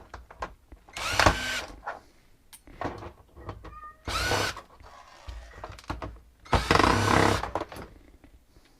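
Power drill running in three short bursts, the third the longest, its motor whining up in pitch each time as it spins screws out of the docking station's case, with clicks and handling noise between the bursts.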